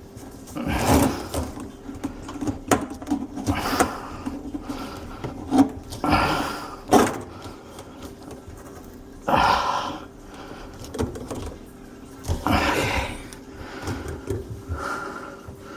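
Hand work on sink drain parts and a hose clamp: irregular scrapes and rustles every few seconds, with a few sharp clicks between them.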